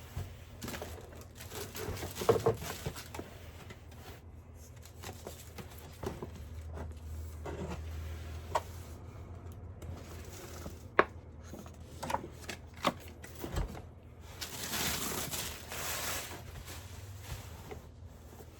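Packaging being handled during an unboxing: rustling of cardboard and plastic, with a few sharp clicks and knocks and a louder rustle lasting about two seconds near the end.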